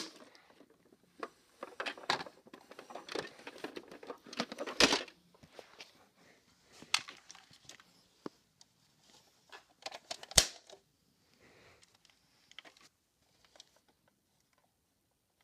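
Plastic toy vehicles and a toy trailer being handled and moved about on carpet: scattered clicks, light rattles and rustles, with two sharper knocks about five and ten seconds in.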